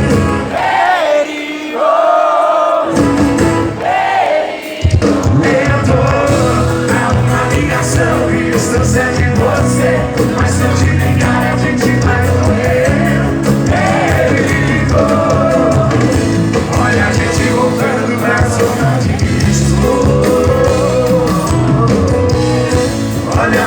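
A song: a voice singing a melody over a band. The low end drops out for the first few seconds, then the full band comes back in about five seconds in.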